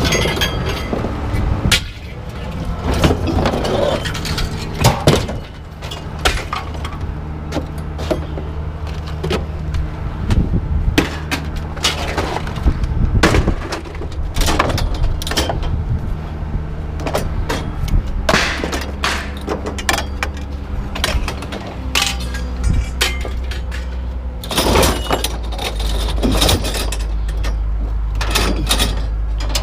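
Scrap metal being thrown off a truck onto a pile: a long run of irregular clanks and crashes, some very loud, over the steady low hum of an engine running.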